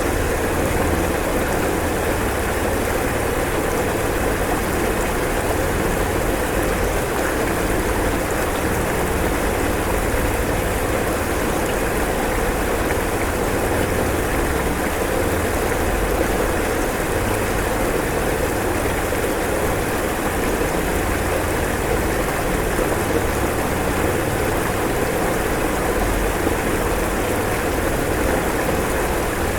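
Floodwater from an overflowing river rushing steadily, a dense continuous water noise with a deep low rumble.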